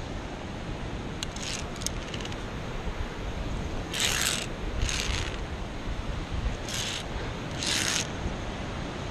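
Via ferrata carabiners clinking lightly on the steel safety cable, then four short scrapes about a second apart as the climber moves along the rock and grips the iron rungs, over a steady low rumble.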